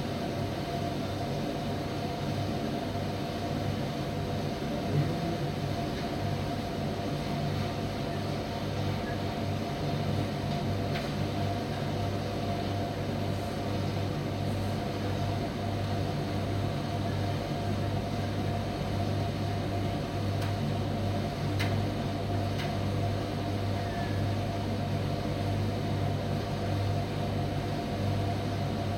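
Primus commercial tumble dryer running with a steady mechanical hum from its motor and drum, with a few faint clicks.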